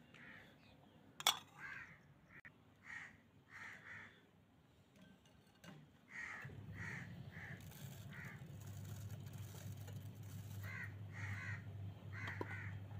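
A bird calling over and over in short runs of several calls each. About a second in there is one sharp clink, like a metal spoon against the glass bowl. A steady low hum sets in about six seconds in.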